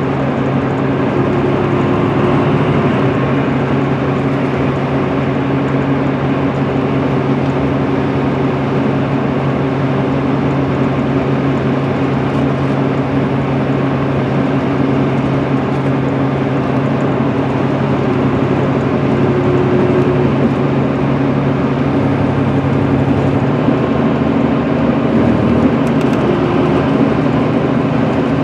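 Cummins ISM 280 diesel engine of an MCI D4500CL coach cruising at highway speed, heard from inside the passenger cabin: a steady low drone over tyre and road noise. The engine note shifts slightly about 23 seconds in.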